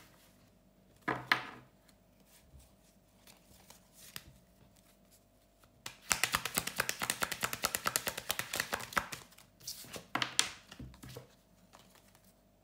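A deck of tarot cards being shuffled: a dense run of rapid card clicks lasting about three seconds from around the middle, with a couple of brief card-handling rustles before and after.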